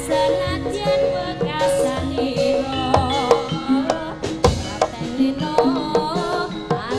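A female sindhen sings into a microphone over amplified instrumental accompaniment, holding and wavering long notes, with sharp hand-drum strokes scattered through.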